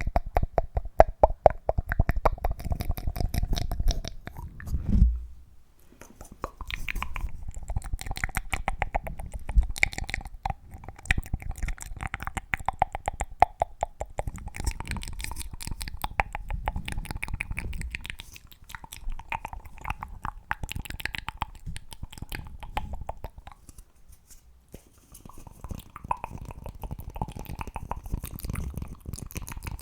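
Rapid close-miked ASMR tapping and mouth sounds: a dense, fast run of clicks over a faint ringing tone, pausing briefly about five seconds in and again near twenty-four seconds.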